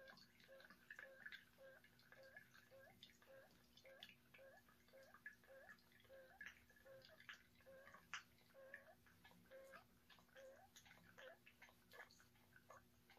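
Faint, even clicking of a hand-pumped portable capsule espresso maker's piston, about two strokes a second, building pressure to push espresso through a Nespresso capsule.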